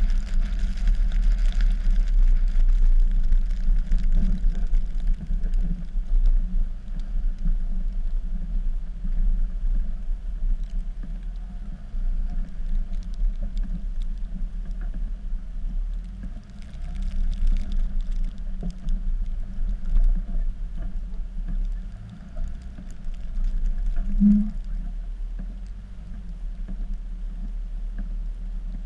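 Dodge pickup's Cummins diesel engine running under load while plowing snow: a steady low rumble that swells and eases.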